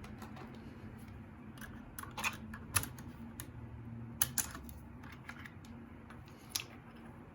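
Keys on a mechanical keyboard with Gateron Yellow Pro linear switches pressed now and then: scattered, irregular clacks, a few noticeably louder than the rest.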